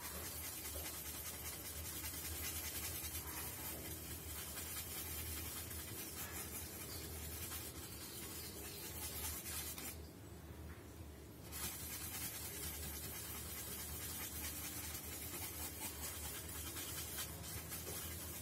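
Paintbrush scrubbing paint around on a polystyrene foam slab: a soft, steady scratchy rubbing. It stops for about a second and a half roughly ten seconds in, then starts again.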